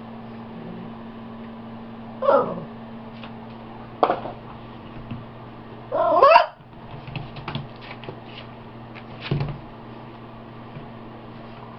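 Boxer puppies about five weeks old vocalising as they play: four short yips and growls with bending pitch, the loudest and longest about six seconds in, with a few light clicks between. A steady low hum runs underneath.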